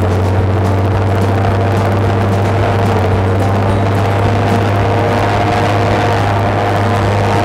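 Paramotor engine and propeller running steadily under power, a constant loud drone heard close up from the pilot's seat.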